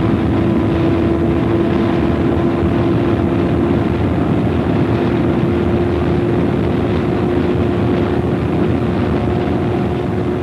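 Racing car engine held at full throttle down a long straight, heard from on board: one steady engine note under constant wind and road noise.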